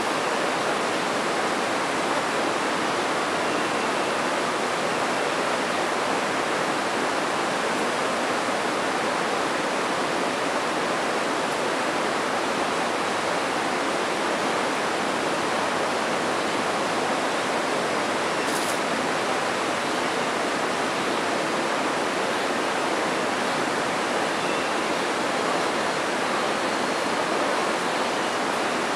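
Steady rush of water pouring over a river dam, an even hiss-like noise that does not change.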